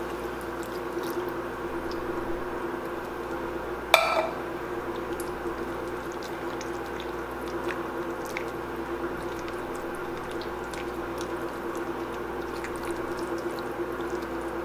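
Canned diced tomatoes pouring into a skillet of pumpkin purée, then a wooden spoon stirring the wet, squishing mixture, with scattered small ticks. A single sharp knock comes about four seconds in, and a steady hum runs underneath.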